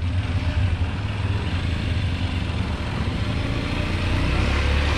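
Honda Tiger motorcycle engine, a single-cylinder four-stroke, running steadily under load as it pulls a homemade mini dump truck carrying about 1.6 tonnes of sand at low speed, with a low drone that grows slightly louder near the end.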